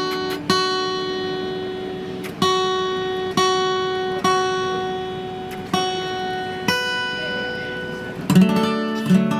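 Acoustic guitar played solo: plucked notes ringing out and fading, struck roughly once a second, with a fuller strummed chord near the end.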